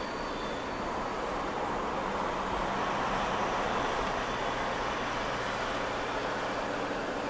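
Steady engine and road noise inside a moving 4x4 vehicle, rising slightly a couple of seconds in.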